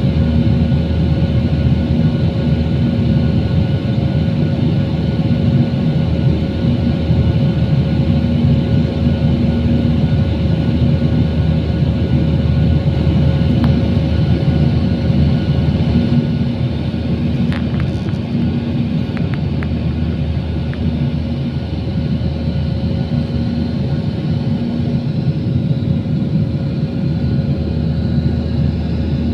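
Steady drone of an Airbus airliner's jet engines and airflow heard from inside the passenger cabin in flight, with a constant low rumble and a few steady whining tones. A few faint clicks a little past the middle.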